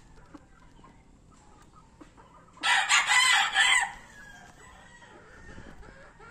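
A gamecock crowing once, loud and a little over a second long, about two and a half seconds in.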